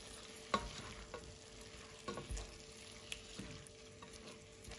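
Diced chicken breast and onion sizzling softly in oil in a nonstick pot on low gas, as a silicone spatula stirs them with a few light knocks and scrapes against the pot.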